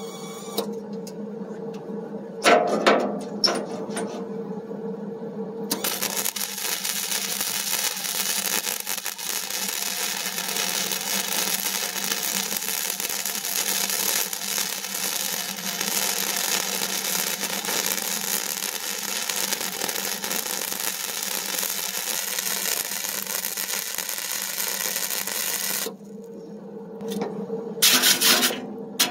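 Power grinder working steel, a steady abrasive grinding noise that starts about six seconds in and cuts off suddenly about twenty seconds later. A few knocks come about three seconds in, and quick sharp taps start just before the end.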